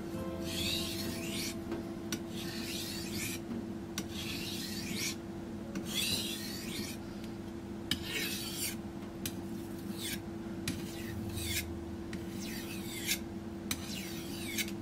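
Back of a stainless high-carbon single-bevel knife being honed on a wet fine whetstone (Kuromaku 12000 grit): a series of rasping scrape strokes, one every second and a half to two seconds. The blade back is held tilted slightly because it would not contact flat; the steel is now biting on the stone.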